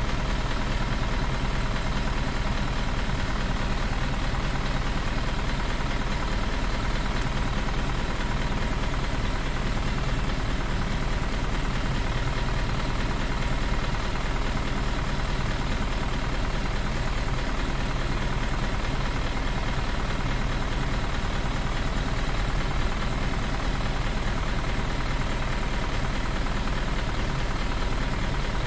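Isuzu Erga Mio bus's 4HK1 four-cylinder turbo-diesel idling steadily, its pitch and level unchanging.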